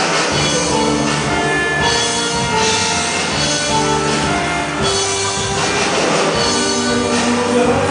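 A band playing a song, with held notes over a steady accompaniment.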